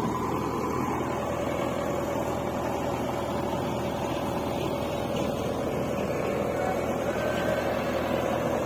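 Diesel engines of a John Deere tractor pulling a trailer loaded with soil and a JCB 3DX backhoe loader, running steadily.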